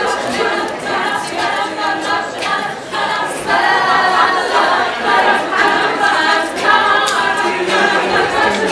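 An a cappella vocal group singing, several voices together with no instruments.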